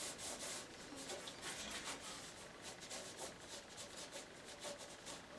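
Graphite stick scratching faintly across watercolour paper in short, irregular strokes as an outline is sketched.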